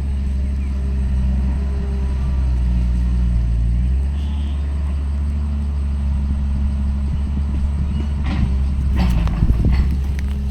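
Diesel engine of a tracked earthmoving machine running steadily, its note shifting pitch a few times. A cluster of clanks and knocks comes near the end.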